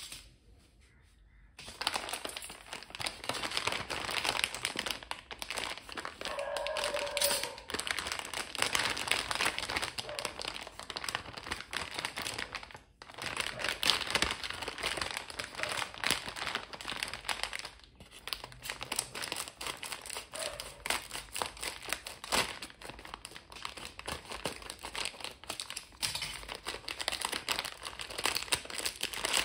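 Plastic of a Chupa Chups lollipop multipack bag crinkling as hands crumple and open it. A dense, continuous crackle starts about two seconds in and pauses briefly twice.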